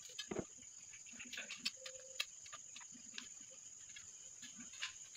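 Faint scattered clicks and light metallic ticks from a thin aluminium can piece being bent and worked with pliers, over a steady high-pitched hiss.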